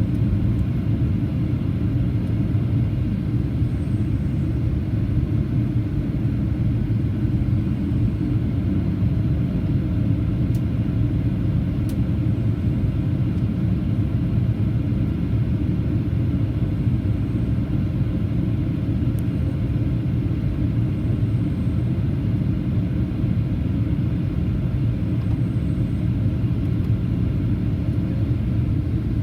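Steady low rumble of a Boeing 737-800 in flight heard inside the cabin: airflow and the CFM56-7B engines, unchanging throughout.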